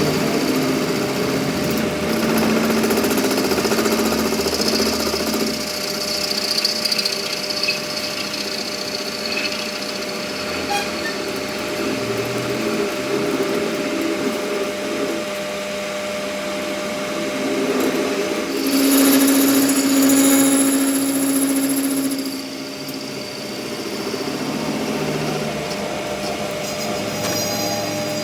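A power tool running on and off load in a repair shop, its pitch and loudness shifting, louder for a few seconds near the end.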